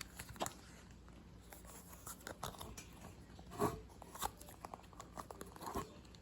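Scattered faint clicks and scrapes of a slime container's screw-on lid being twisted by hand. The lid is tight and hard to open, with a couple of louder knocks a little past the middle.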